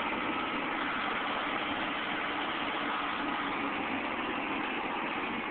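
Caterpillar 235 excavator's diesel engine running steadily, heard from some distance.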